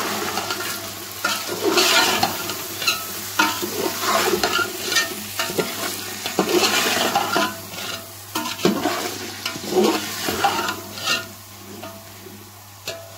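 A spatula stirring and scraping boiled chickpeas and spices around a large metal pot of hot oil, with frying sizzle under the strokes: the bhuna stage of chana pulao. The strokes come irregularly, about one a second, and ease off near the end.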